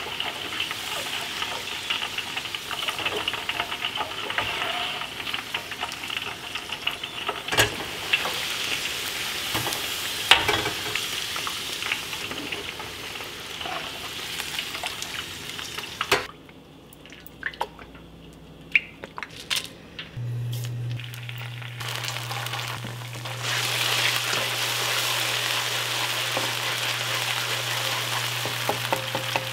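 Battered chicken pieces deep-frying in hot oil in a steel wok, a steady fizzing sizzle, with a metal skimmer clinking against the wok a few times. About halfway through it goes quieter and a steady low hum comes in; near the end minced aromatics sizzle in a nonstick wok as a spatula stirs them.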